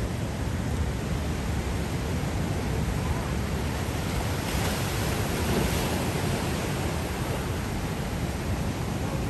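Surf washing up a sandy beach with wind noise on the microphone, a steady rushing hiss; a wave breaks and washes in louder about halfway through.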